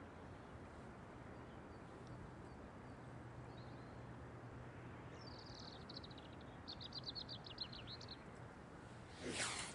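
Faint steady outdoor noise with a small bird singing a fast, high trill about halfway through. Just before the end, a short whoosh as the long casting rod and line sweep forward through the air on the forward cast.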